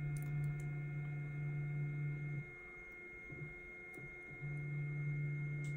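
FlashForge Adventurer 3 3D printer's stepper motor humming steadily as it drives the build platform upward. The hum stops for about two seconds midway and then starts again with the next move command.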